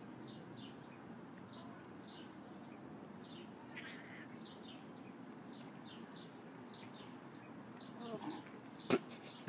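Small birds chirping: many short, falling chirps repeated over a faint steady hum, with one sharp click near the end.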